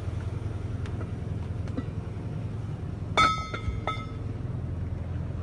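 Boat engine running steadily, with one loud metallic clang about three seconds in as a scuba air cylinder is set down into a metal rack, ringing briefly; a lighter knock follows.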